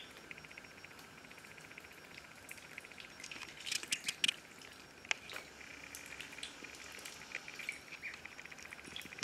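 Indian Runner ducklings peeping softly in a fast trill while paddling in shallow bathtub water, with small patters and splashes. A few sharper splashes come about four seconds in.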